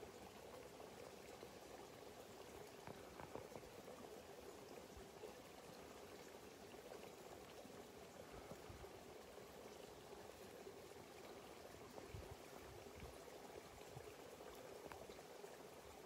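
Faint, steady trickling and gurgling of water at the water's edge, with a few soft low bumps of wind on the microphone.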